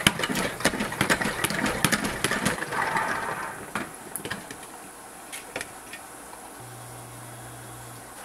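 Clattering and rustling handling noise for about three seconds, then a few scattered clicks, and a low steady hum that switches on about six and a half seconds in.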